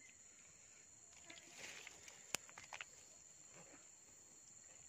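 Near silence with a steady high insect drone, broken by a few faint rustles and one sharp click a little past two seconds in.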